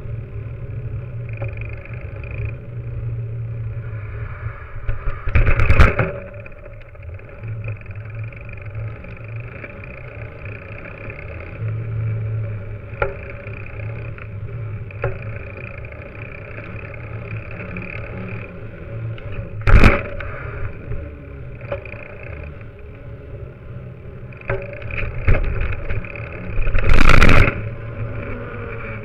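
Rolling noise of a mountain bike heard through a camera clamped to its suspension fork: a steady low rumble and rattle from the knobby tyre and the fork over paving and tarmac. Hard jolts knock loudly through the mount about six seconds in, again around twenty seconds, and in a rougher second-long burst near the end.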